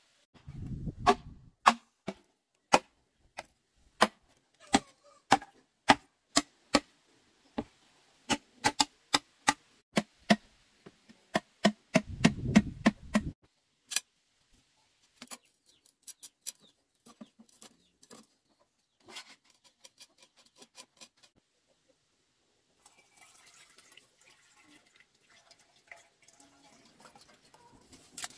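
Repeated sharp knocks, one or two a second, of a wooden-handled hand tool striking. They grow fainter and sparser about halfway through, and a soft rustling follows near the end.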